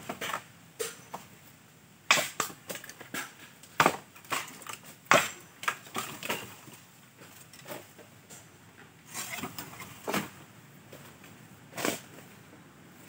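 A dry bamboo pole being pulled down through a stand of bamboo: irregular cracks, knocks and crunches of dry culm and leaves, the sharpest about two, four, five and ten seconds in.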